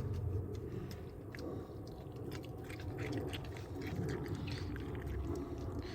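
A fox chewing food: a run of irregular small wet clicks and smacks.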